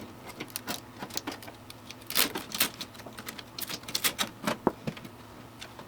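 Irregular clicks, taps and light knocks of hands handling computer hardware, busiest in the middle.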